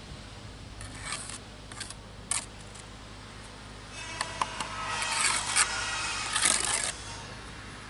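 Steel brick trowel scraping and tapping against brick and mortar: a few short scrapes and one sharp tap in the first few seconds, then a denser run of scraping from about four seconds in, as mortar is worked off the freshly laid brick.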